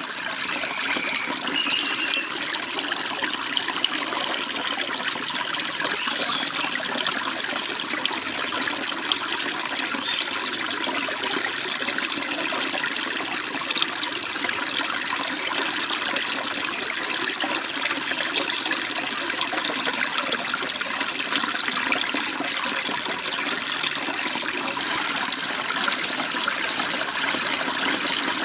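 Forest stream babbling in a steady, even rush of running water, with a couple of faint high bird chirps about a second in.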